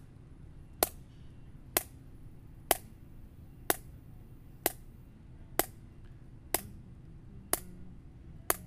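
A steady beat of sharp clicks, about one a second and nine in all, keeping the time for a rhythm improvisation exercise.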